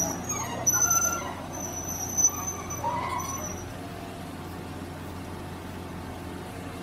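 UltraTrex AX110LRP amphibious excavator running: a steady low engine hum, with thin high-pitched squeals that come and go in the first few seconds before it settles into an even drone.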